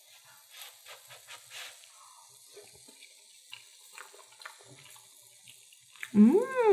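Faint scattered ticks and crackle, then about six seconds in a woman's loud hum that slides up and back down in pitch while she tastes a mouthful of scrambled egg.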